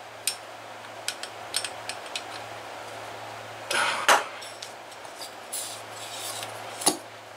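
Light metal clicks and knocks from a screwdriver working the back-plate screws of a Super Tigre glow engine's aluminium crankcase, with a louder clatter about four seconds in as the tool is put down and the engine is handled. A steady low hum runs underneath.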